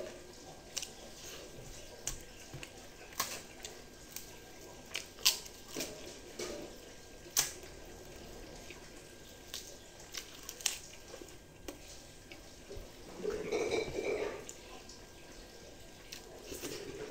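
Close-up wet eating sounds: mouth smacks and chewing with scattered sharp clicks, and fingers squishing rice and dal. A short louder muffled sound comes about thirteen seconds in.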